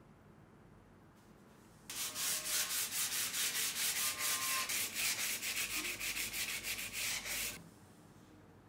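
Hand-sanding a rusty steel knife blade clamped in a vise: quick back-and-forth rasping strokes, about five or six a second, starting about two seconds in and stopping abruptly about a second before the end.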